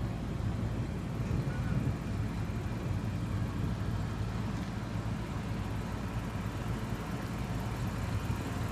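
Steady low outdoor rumble of wind and background noise ahead of an approaching thunderstorm, even throughout with no distinct events.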